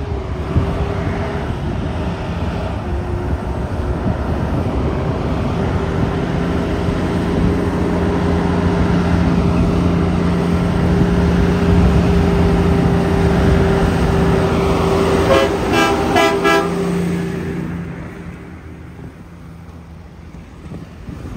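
Heavy truck's diesel engine running steadily and growing louder, with a quick string of short horn toots about fifteen seconds in; the engine sound then fades away.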